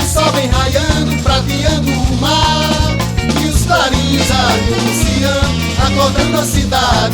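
Upbeat band music with a bouncing bass line and a steady dance beat under melodic lead lines, with no clear lead vocal.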